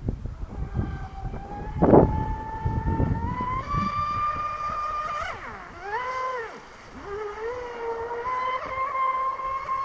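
Stock RC speedboat's electric motor whining as the boat runs, the pitch rising, dropping away about halfway through as the throttle eases off, then climbing back. Wind buffets the microphone, with a brief thump about two seconds in.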